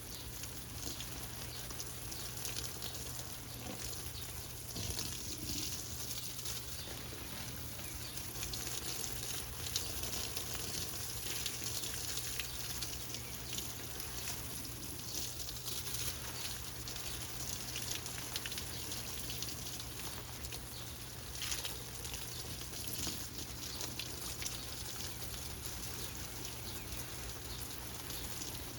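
Steady hiss and patter of falling water, with fine crackling detail throughout.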